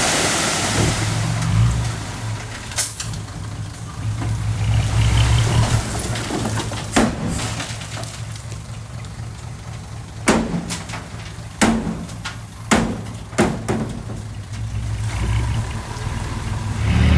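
Heavy diesel earthmoving machinery running at low revs, with a hiss at the start and sharp knocks and clanks scattered through the second half. The engine gets louder near the end.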